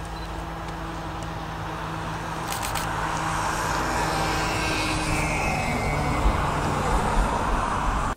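Diesel multiple-unit railcar running along the line at a distance: a steady engine hum under a broad rushing sound of the train that grows louder through the second half.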